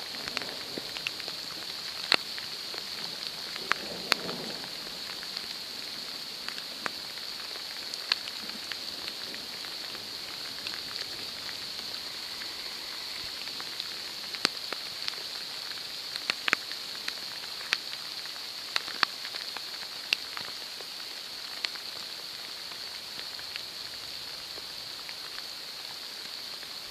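Steady rain hiss with many sharp, irregular ticks of large drops landing close by. There is a brief low rumble about four seconds in.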